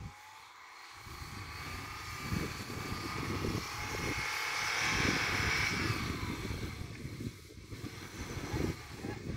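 Lada Niva's four-cylinder engine working under load as it ploughs through deep snow toward the microphone, rising in pitch and loudness to a peak about halfway through, then easing off.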